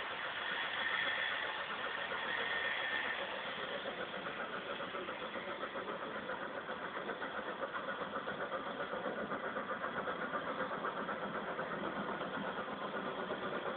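Steam locomotive working, with a higher steady tone over the first few seconds, then even exhaust beats of about four a second.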